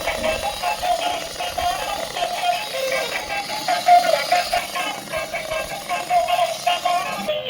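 Background music with a synthetic-sounding vocal melody, switching abruptly to a different section just before the end.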